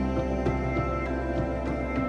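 Instrumental background music with a held low drone under sustained notes and a light beat about three times a second.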